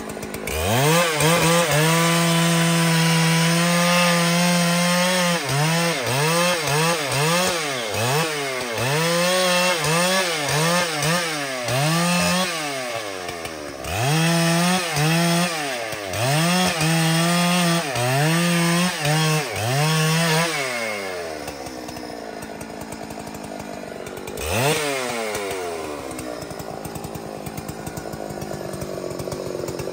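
Large two-stroke Husqvarna chainsaw running at high revs. It is held steady at first, then the throttle is repeatedly let off and squeezed again, so the engine note dips and climbs back every second or so. About two-thirds of the way in it drops to a lower, quieter idle, with one short rev a few seconds later.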